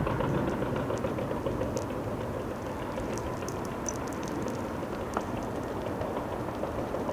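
Caterpillar D7E diesel-electric crawler dozer working as it pushes earth down a slope: a steady engine and drive noise with faint scattered clicks of the tracks.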